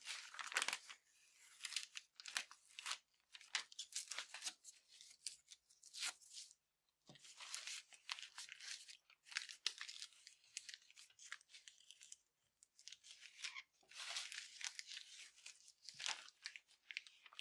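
Masking paper and masking tape being peeled off a freshly painted car door's window frame: faint, irregular bursts of tearing and crinkling with short pauses between pulls.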